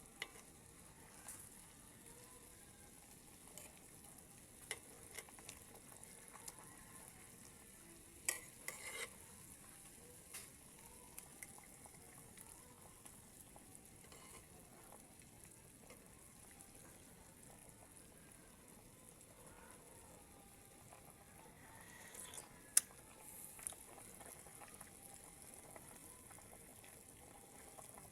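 Food cooking on the stove, a faint steady sizzling hiss, with a few short light clicks and taps, the sharpest about eight seconds in and again about twenty-three seconds in.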